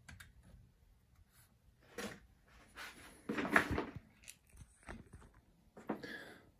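Handling noises: a few short rustles and scrapes as hands move over the lathe and its accessories, the loudest about three and a half seconds in.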